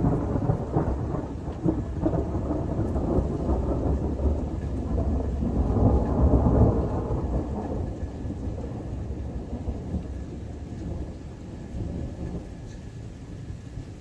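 A long roll of thunder rumbling, swelling to its loudest about six seconds in and then slowly fading away.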